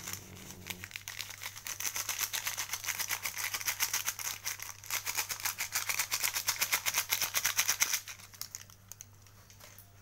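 A packet of Royco powdered seasoning being shaken out over a metal pan of chili sauce: a fast, dense rattle of the packet and falling granules for about eight seconds, stopping near the end.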